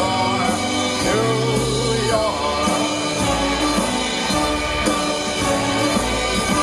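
A song with singing over a full band backing plays as a soundtrack.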